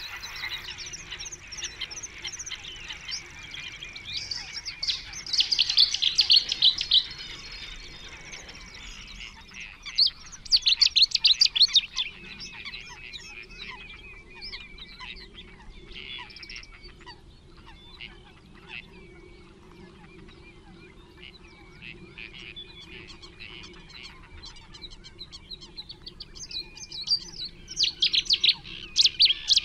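Small songbirds singing rapid, chirping phrases in three loud bursts: a few seconds in, about ten seconds in, and near the end, with scattered quieter calls in between.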